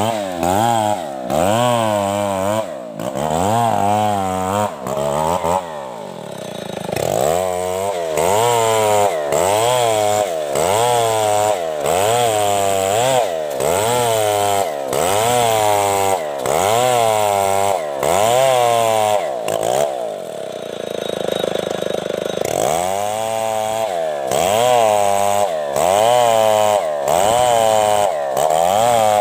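Two-stroke chainsaw ripping a coconut trunk lengthwise, the engine pitch rising and falling about once a second as the chain bites and eases under load. About two-thirds of the way through it holds a steadier, lower note for two seconds, then resumes the cut.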